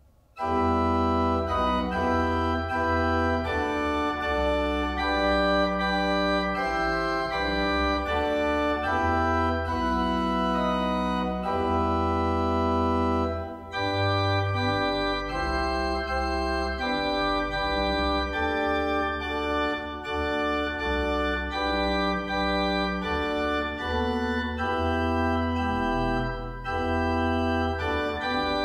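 Pipe organ playing sustained chords over a deep pedal bass, starting about half a second in. It breaks off briefly about 14 seconds in and carries on with a new passage.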